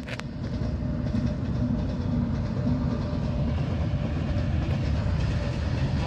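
Goods train of open wagons hauled by an electric locomotive, rolling past with a steady rumbling noise that builds over the first second and then holds.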